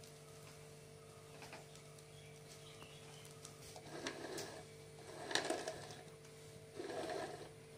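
Metal offset spatula spreading whipped cream-cheese frosting over a cake top: three short scraping strokes about a second and a half apart in the second half, over a steady low hum.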